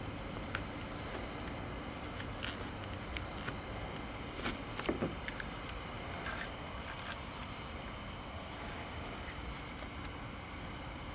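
Crickets trilling steadily in one constant high tone, with a few short scrapes and clicks from a razor-blade scraper working a vinyl decal off the car's window glass.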